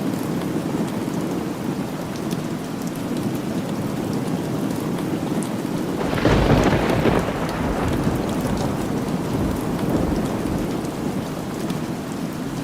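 Steady rain falling, with a clap of thunder about halfway through that rolls off into a low rumble over a few seconds.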